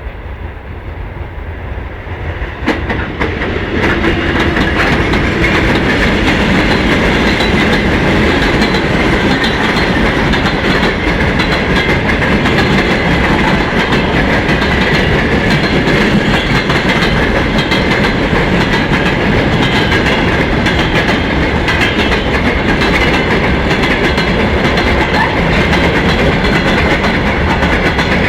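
Freight train hauled by a VL80T electric locomotive rolling past, its wheels clattering over the rail joints. The sound grows louder over the first few seconds as the train arrives, then holds steady as the wagons go by.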